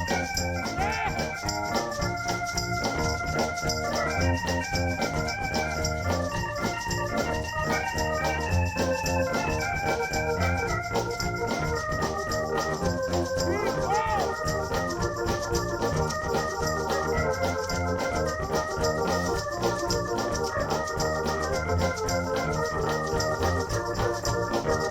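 Live soul band playing an instrumental passage led by an organ-voiced keyboard, held chords and stepping melody notes, with bass and drums underneath.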